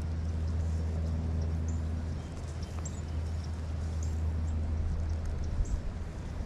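Outdoor creekside ambience: small birds chirping now and then over a steady low rumble.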